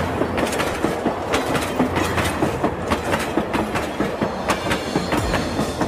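Battery-powered toy train running round a plastic track, a fast, irregular stream of clicks and rattles from its motor and wheels on the track.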